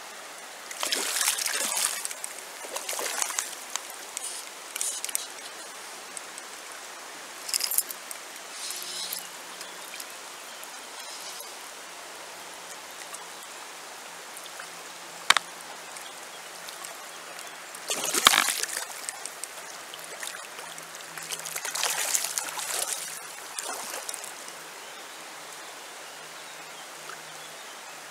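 Shallow river running over stones, a steady rush of water, with irregular splashes and sloshes every few seconds, the loudest about 18 seconds in. One sharp click about 15 seconds in.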